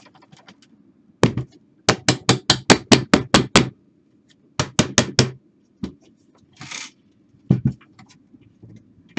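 Sharp taps on the pressed-steel chassis of a Pioneer PD-Z81M CD player, in quick runs: a single tap, a fast run of about nine, a run of about five, then two more near the end. A short rustle comes in between.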